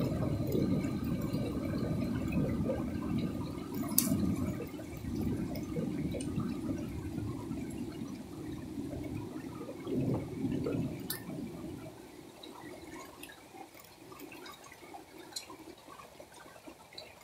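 Rain pouring down and easing off: a dense low rush that fades through the stretch and drops much quieter after about twelve seconds. A few sharp drip-like ticks sound over it.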